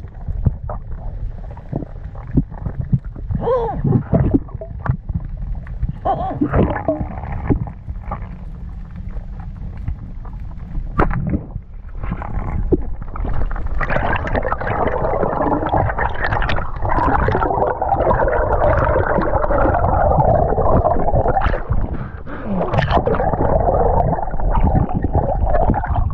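Muffled underwater sound: a low rumble with scattered knocks and clicks, then a dense, steady rush of water noise from about halfway through. Near the end, water splashes as the surface is broken.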